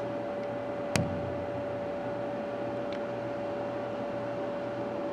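Steady mechanical hum with a constant high tone, the background of an indoor room. One sharp click about a second in and a fainter tick near the end.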